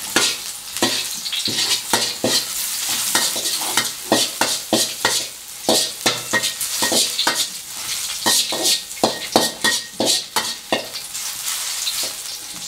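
Garlic sizzling in hot oil in a metal wok, with a metal wok spatula scraping and clanking against the wok in repeated quick stirring strokes, several a second.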